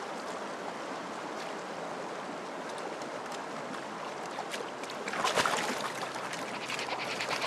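Steady rushing noise, with a louder rush about five seconds in and a fast, rhythmic pulsing coming in near the end.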